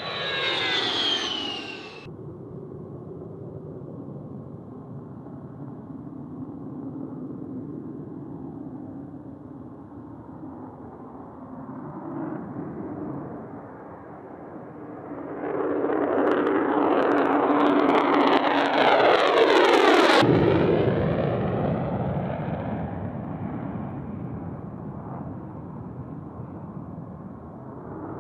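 Fighter jet engines passing: a falling whine as a jet goes by in the first two seconds, then a steady jet rumble that swells into a loud pass from about 15 to 20 seconds, cuts off abruptly, and gives way to a slowly fading rumble.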